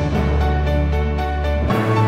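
Background music with sustained notes over a steady bass, the bass changing near the end.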